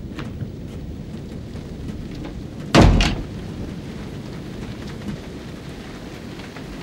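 Steady rain, with a sudden loud crack about three seconds in, struck twice in quick succession.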